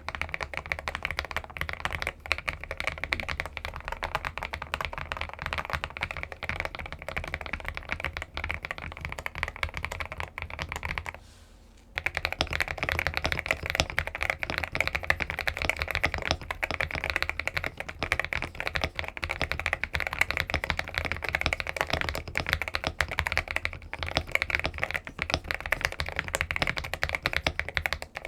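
Fast, continuous typing on a mechanical keyboard, a dense stream of key clacks. It breaks off briefly about eleven seconds in, then picks up again a little louder.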